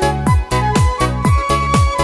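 Loud electronic dance music with a steady beat of about four strokes a second under a high melody line.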